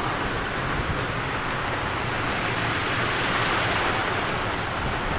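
Steady rushing hiss of a heavy downpour and flowing floodwater, even in level throughout.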